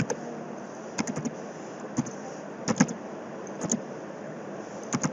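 Short, sharp clicks at irregular intervals, about one a second, over a steady background hiss.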